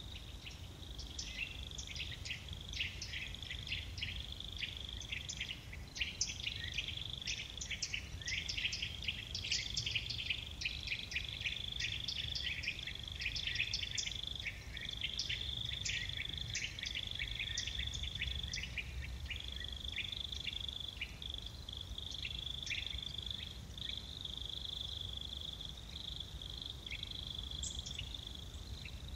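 High-pitched wildlife chirping: a steady high trill with many quick chirps over it, as in a chorus of insects and birds.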